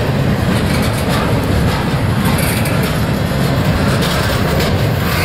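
Double-stack intermodal train's container well cars rolling past: a steady rumble of steel wheels on rail with light, irregular clicking.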